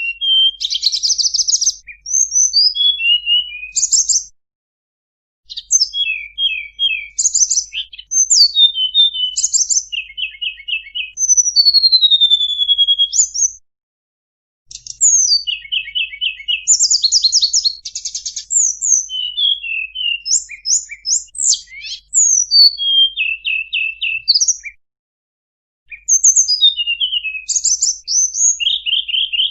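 Tledekan gunung songbird singing a varied song of rapid high chirps, buzzy trills and short whistled glides, delivered in bursts of several seconds with brief pauses between them.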